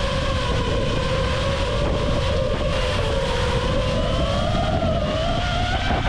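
FPV quadcopter's motors whining steadily, the pitch wavering with the throttle and climbing about four seconds in before easing back near the end.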